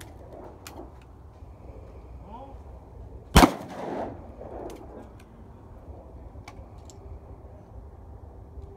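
A single shotgun blast at a clay target about a third of the way in, its report echoing back about half a second later.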